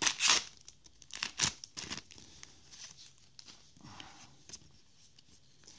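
Foil trading-card booster pack torn open, with a few sharp ripping and crinkling strokes in the first two seconds, then quieter flicks and clicks of the cards being leafed through.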